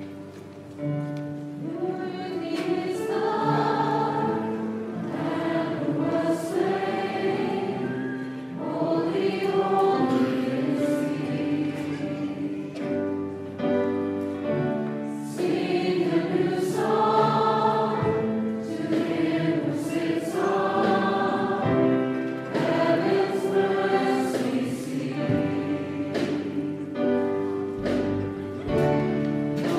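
Choir singing a sacred piece in phrases a few seconds long.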